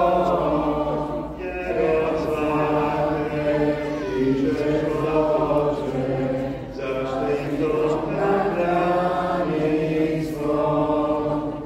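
A congregation singing a church hymn together, in long held phrases with short breaks between them.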